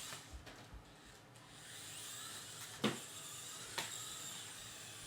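Air Hogs Super Soft Stunt Shot RC stunt car's small electric drive motors whirring as it drives, with two short knocks about a second apart near the middle.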